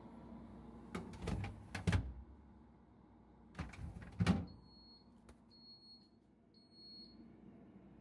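Plastic refrigerator shelves and drawers clattering and knocking as they are slid out and handled, in two bursts of several knocks each. Near the end come three short, high electronic beeps.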